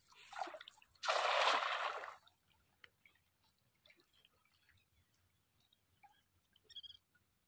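Hand-thrown cast net hitting the river water with a loud splash about a second in, lasting about a second, just after a shorter, softer swish. A few small ticks of dripping water follow.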